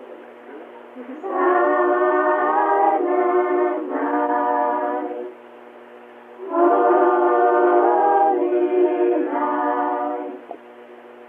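Children singing a Christmas carol unaccompanied, in two sung phrases with a short pause between them. The sound is thin and narrow, as from an old cassette tape recording.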